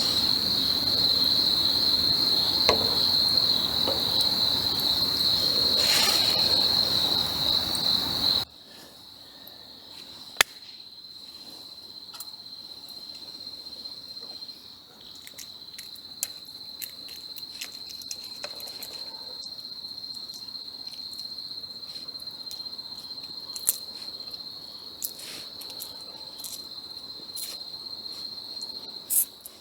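Insects, crickets, trilling steadily at a high pitch; about eight seconds in the whole scene suddenly drops much quieter, and the trill carries on with scattered sharp crackles from the campfire.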